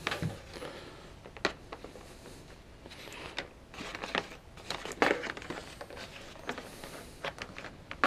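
Rustling and scattered light clicks of a power cord being handled and moved about on a sheet of cardboard.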